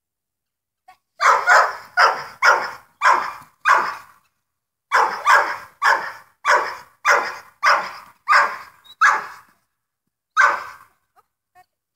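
Dog barking repeatedly, about two barks a second, in two runs with a short break between them, then a single bark near the end.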